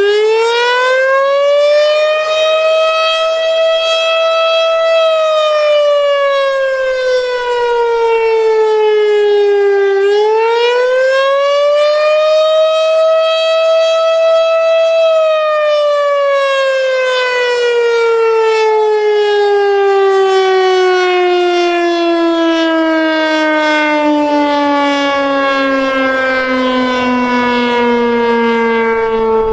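Federal Signal STH-10 outdoor warning siren sounding the attack signal, loud. Its single tone rises and falls twice, holding high for a few seconds each time. About halfway through it begins a long, slow wind-down that is still falling at the end.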